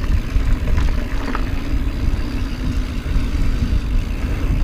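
A mountain bike rolling fast over a dirt and rock trail, with a steady wind rumble on the microphone and a few light clicks and rattles.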